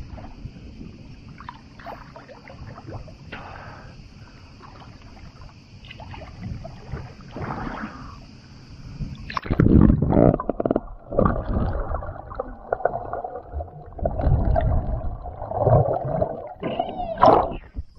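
Cicadas buzzing steadily in the shoreline pines. About halfway through the buzz cuts out and is replaced by loud, muffled water sloshing and gurgling in irregular surges, heard from a camera under the water.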